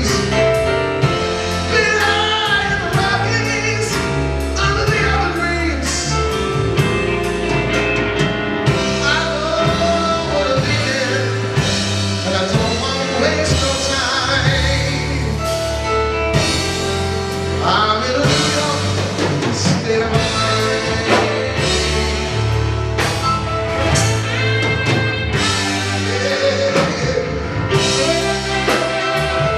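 A live rock band playing: piano, drum kit, electric bass and electric guitar, with a man singing lead.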